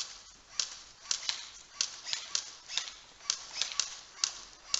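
Airsoft guns firing a rapid, uneven string of single shots, each a short sharp crack, about three a second.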